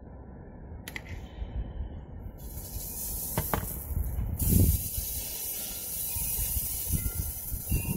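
Irrigation sprinklers spraying water: a steady hiss that starts about two and a half seconds in as the zone comes on. Under it runs a low rumble, with a few faint clicks.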